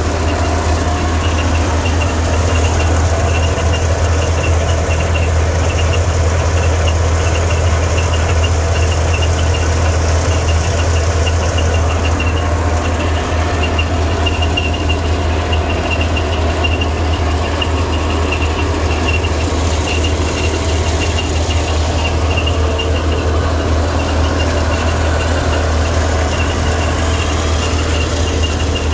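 Tractor-powered onion seed thresher running steadily under load, the tractor engine's low drone mixed with the threshing drum and fan, and a fast high rattle going over it, as dried onion seed heads are fed through.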